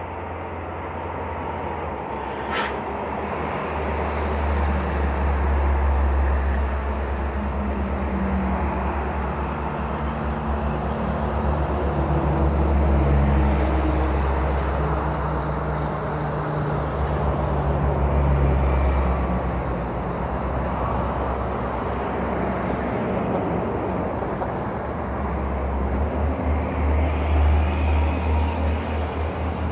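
Heavy trucks' diesel engines running on a road, a deep rumble that swells and fades several times as vehicles pass or pull. A brief sharp high-pitched sound comes about two seconds in.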